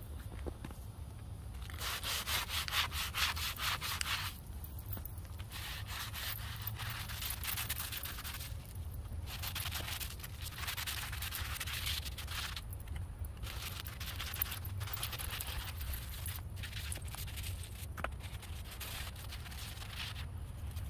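Scrub brush rubbing soapy water up and down a crepe myrtle trunk, scratchy back-and-forth strokes in runs of a few seconds with short pauses between, over a low steady rumble. The bark is being scrubbed with dish soap to clear bark scale and black sooty mold.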